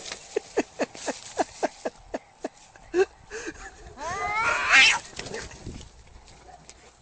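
Angry domestic cat calling: a quick run of short, sharp calls, then about four seconds in a loud yowl lasting about a second, rising in pitch.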